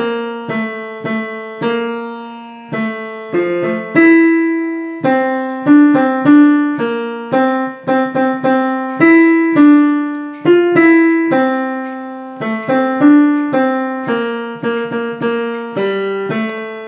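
Piano playing the tenor line of a choral piece as a rehearsal part: a single melody of separate struck notes, about two a second, each dying away before the next.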